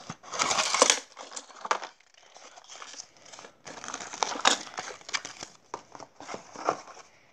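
Small cardboard toy box being torn and pulled open by hand, its cardboard and paper flaps crinkling and rustling. It is loudest in the first second, then goes on as scattered rustles and small clicks.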